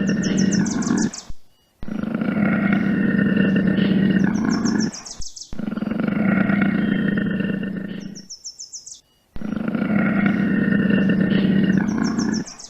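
A large animal's long, low calls, four in a row of about three seconds each, each cut off abruptly, with a brief high chirping at the start of each.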